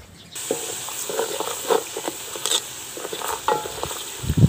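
Browned onions and ground spices frying in oil in an aluminium pot, sizzling steadily while a wooden spoon stirs and scrapes against the pot. The sizzle starts suddenly just after the beginning.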